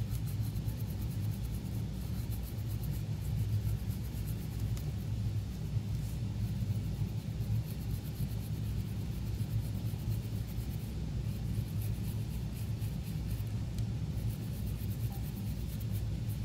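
Stiff-bristle brush scrubbing alcohol-wet flux residue off a circuit board around a QFN chip: a fast, scratchy brushing over a steady low rumble.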